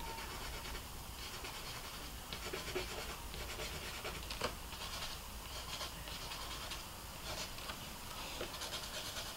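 Faint scratching of a black ink pen on textured watercolour paper, drawn in short, repeated strokes with a couple of sharper ticks.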